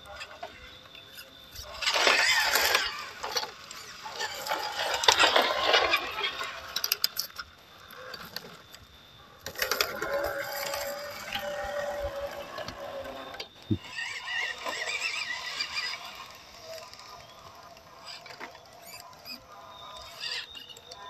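Scale RC crawlers' small electric motors and gearboxes whining as they crawl over rock, in bursts of throttle; the loudest bursts come about two, five and ten seconds in.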